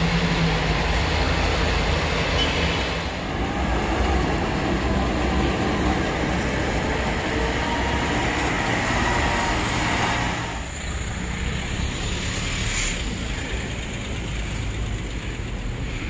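Steady rumbling vehicle noise, a little quieter from about ten seconds in.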